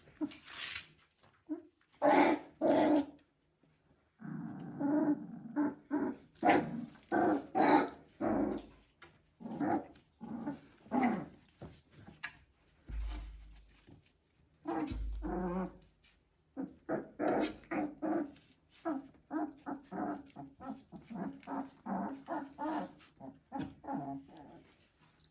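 Three-week-old Border Collie puppies making a run of short vocalisations: little growls, whines and yips, one after another, with a longer rough growl a few seconds in. Two low bumps come about halfway through.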